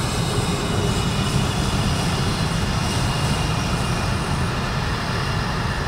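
Twin turbofan engines of an F-22 Raptor fighter jet running as the jet rolls along the runway: a steady, loud jet noise with a deep rumble and a thin high turbine whine over it.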